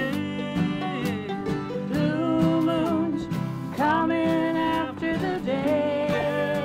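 Live acoustic country/bluegrass jam: several acoustic guitars and mandolins strumming a tune, with voices singing held notes over them.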